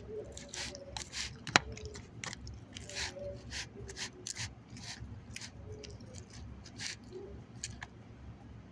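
Close-up eating sounds: chewing crunchy chicken salad, with irregular moist crackles and crunches and a sharp click about a second and a half in.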